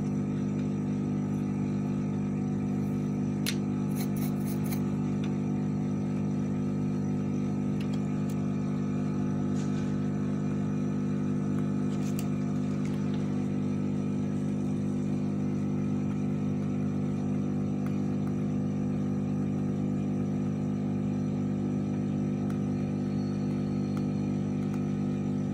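Steady electrical hum from workbench equipment: an even low drone that does not change, with a few faint ticks from tools.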